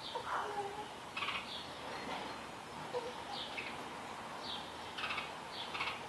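House sparrow chirps: short, falling notes, about one or two a second, some coming in quick pairs.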